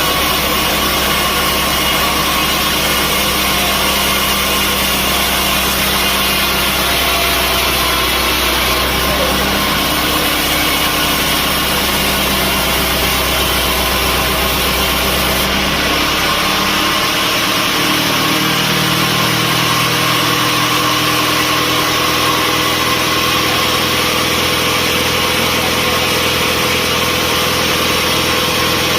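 Sawmill machinery running steadily with an engine-like hum and a dense mechanical noise; about 17 seconds in the low hum shifts to a different pitch as the machine's speed or load changes.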